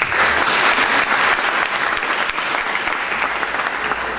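Audience applauding, a dense clatter of many hands clapping at once that begins to die down near the end.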